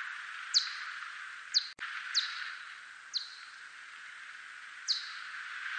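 대륙쇠큰수염박쥐 whiskered bat echolocation calls, brought down into hearing range: five short chirps, each sweeping downward in pitch, at uneven intervals over a steady hiss. The sound cuts out for an instant just under two seconds in.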